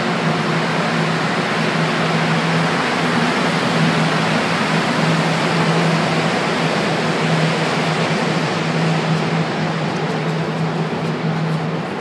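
Rubber-tyred Montréal Métro train running along the platform and pulling out of the station: a loud, steady rush of noise with an on-and-off low hum, easing slightly near the end as the train leaves.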